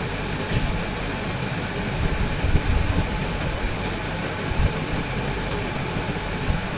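Steady background hiss and rumble like a running fan or air conditioner, with a few soft low bumps about two to three seconds in and again near five seconds.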